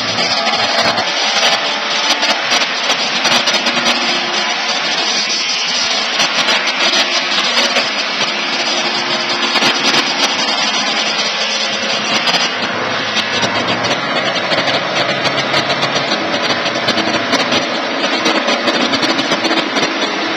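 Rimu Engineering portable electric sawmill running steadily, a loud, even mechanical noise without a break.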